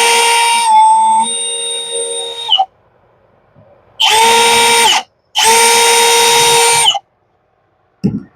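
Electric power drill running in three bursts: one of about two and a half seconds, then after a pause two shorter runs of about a second and a second and a half. Each run holds a steady whine and stops sharply, typical of drilling holes for the screws that will hold a bracket down.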